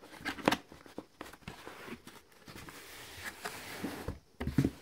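Cardboard shipping box being opened by hand: rustling and scraping of cardboard with scattered knocks, the loudest about half a second in, and a heavier thump near the end.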